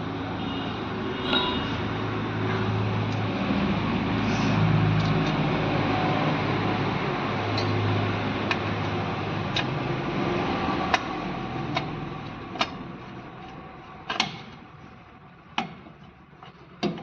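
A motor vehicle's engine running steadily with a low hum, fading away after about twelve seconds, while light metallic clicks and taps of hand tools on brake parts come through, plainer near the end.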